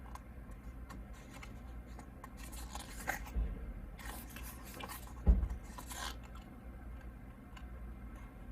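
Pages of a paper photobook being turned and handled: intermittent rustling and sliding of paper, with a soft thump a little past the middle.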